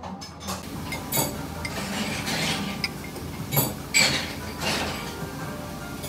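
Spoons clinking against a ceramic bowl and a glass dessert dish: a few sharp clinks over steady background noise.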